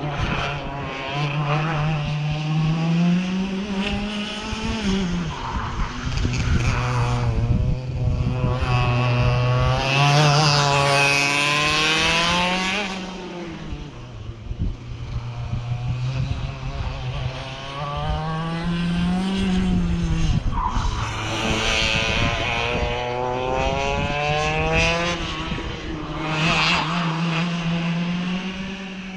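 Several racing kart engines lapping the circuit, their pitch climbing as they accelerate and dropping as they back off for the corners, with engines overlapping as they pass. The loudest pass comes about ten seconds in.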